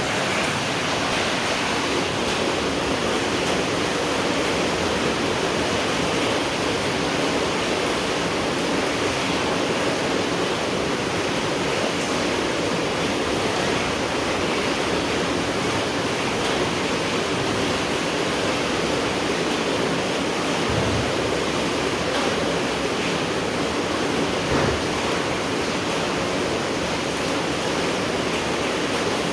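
Steady night rainfall, an even hiss that holds constant throughout, with a couple of soft low thumps in the last third.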